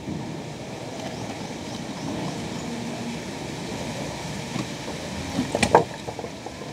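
A clay-covered toy car drops into a tank of muddy water with a short splash about five and a half seconds in, over a steady low rumbling noise.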